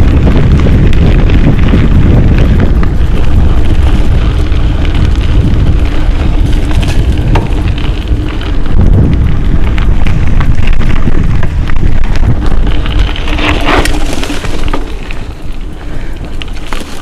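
Mountain bike riding a rough dry-grass singletrack, with heavy wind rumble on the camera's microphone and the bike rattling over the ground. The sound eases off a little near the end.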